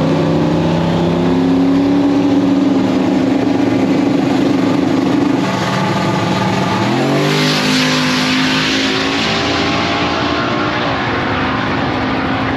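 Drag cars' engines running, holding a steady note, then rising in pitch about seven seconds in as one revs up, with a hissing rush of noise for a few seconds after.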